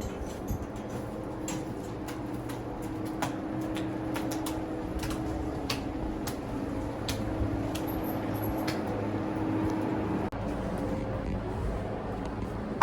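A steady mechanical hum with scattered clicks and knocks over it; the hum breaks off for an instant about ten seconds in.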